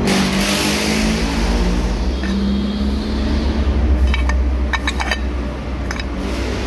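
Steady low workshop rumble with a brief hiss at the start, then a few light metallic clinks about four to five seconds in as a metal engine part is handled.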